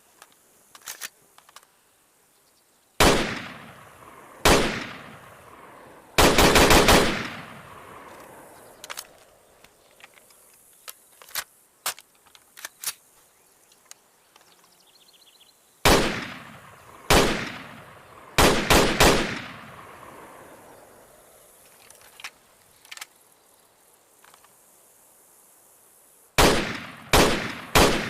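Armalite AR-10T rifle firing: single shots, a rapid string of about eight shots within a second, and groups of three quick shots, each crack followed by a long echoing decay. Fainter clicks and distant pops fall between the shots.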